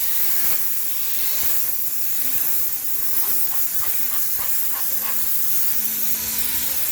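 High-pressure steam cleaner blowing a steady hiss of steam. About halfway through, a quick run of about eight short, higher-pitched pulses sounds over it.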